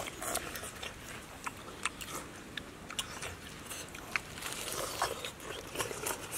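People eating soup with spoons: chewing and slurping, with scattered small clicks of spoons against bowls.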